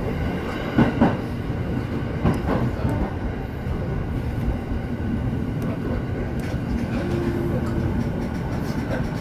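Electric commuter train running slowly into a station, heard from inside the front car: a steady low rumble, with two pairs of wheel clicks over rail joints in the first few seconds.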